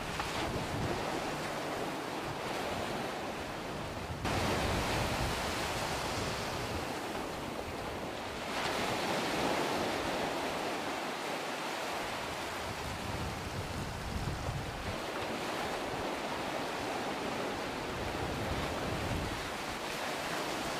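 Steady rushing of wind and choppy water, with wind buffeting the microphone; the noise changes level abruptly about four and eight and a half seconds in.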